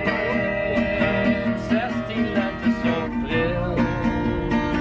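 Acoustic guitar strummed in a steady rhythm, with a long held melody note sounding above the strumming.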